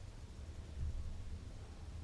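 Quiet room tone: a low steady hum with faint hiss, and one soft low bump a little under a second in.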